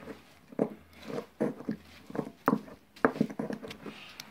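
A pestle mashing cooked tomatoes and chile in a ribbed clay chilmolero bowl, a wet squishing and grinding in irregular strokes, about two a second.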